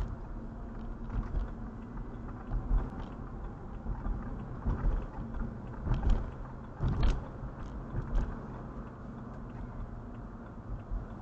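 Faint steady background noise with a low hum, picked up by a doorbell camera's microphone, with scattered soft thumps and knocks, a few of them louder in the middle.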